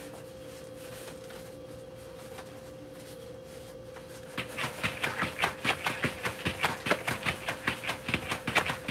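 Battle ropes slapping the floor in a quick, even rhythm, about four slaps a second, starting about four seconds in over a steady low hum.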